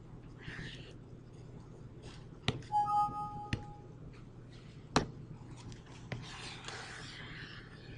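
A few sharp computer mouse clicks a second or more apart over a low steady hum, with a brief steady two-note tone about three seconds in.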